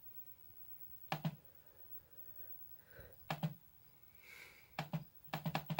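Faint clicks from a laptop's keys, scattered in small clusters: a pair about a second in, another a little after three seconds, then several in quick succession near the end.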